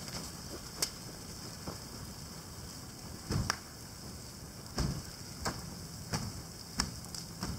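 Fire burning on a Polaris snowmobile, with irregular sharp pops and cracks about once a second, a few of them carrying a dull thump.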